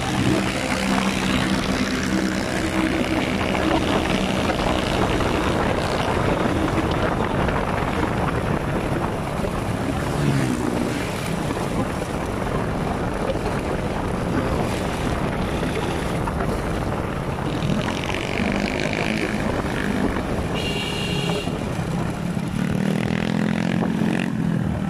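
Steady wind rush on the microphone of a moving road vehicle, with an engine running underneath. The engine rises in pitch about ten seconds in. A short high-pitched tone sounds a few seconds before the end.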